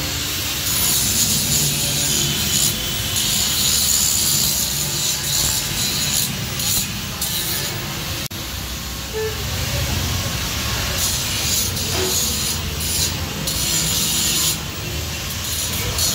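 Handheld angle grinder grinding the welded edges of a sheet-steel cabinet: a harsh grinding noise over the motor's steady hum, breaking off and biting in again several times.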